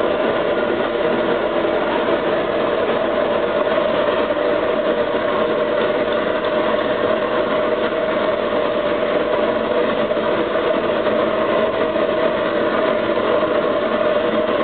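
Sintering furnace equipment running: a steady, unchanging machine drone with a constant mid-pitched hum over a broad hiss.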